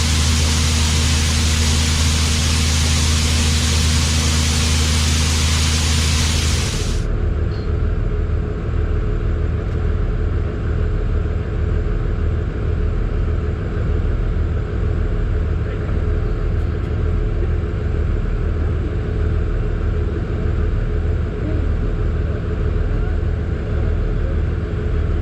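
Truck engine running with a steady low rumble. A loud even hiss over it stops abruptly about seven seconds in, leaving the engine's low pulsing rumble.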